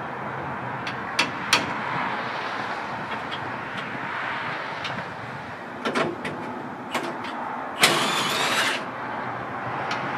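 Scattered metallic clinks and knocks of tools working bolts on a steel truck frame, over a steady background noise, with a louder rattling burst of about a second near the end.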